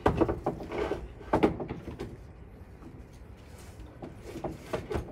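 Knocks and sliding scrapes of a timber sash window's parts being handled in the case: a cluster of knocks in the first second and a half, then a few more near the end.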